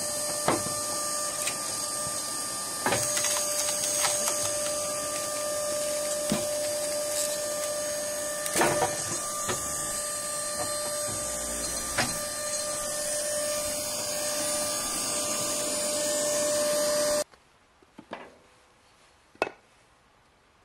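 Motor-driven hydraulic log splitter running steadily with a fixed whine, with irregular sharp cracks as the wood splits. Near the end the machine noise cuts off and a couple of sharp wooden knocks follow as wood is split on a hand-lever splitter.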